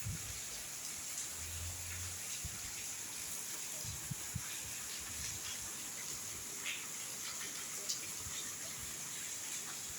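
Steady rain falling, an even hiss with faint scattered drips.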